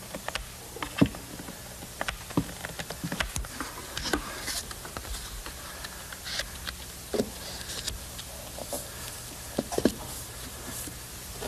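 Paper clock face being laid onto a plywood panel and pressed flat by hand: irregular light taps, clicks and paper rustles over a steady low hum.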